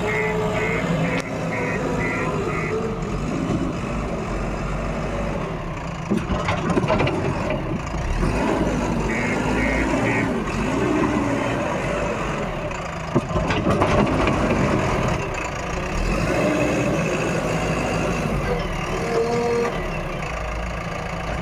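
JCB 3DX backhoe loader's diesel engine running steadily with a deep rumble. A high warning beep sounds about twice a second for a few seconds at the start, and again briefly about nine seconds in.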